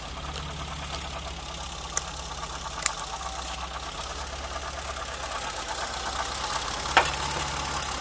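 BMW 325i E30's M20 straight-six idling with the air conditioning on. It carries an intermittent cyclic noise from something turning at the front of the engine, which the owner traces to the timing-belt cover rather than the alternator. A few sharp clicks come about two, three and seven seconds in.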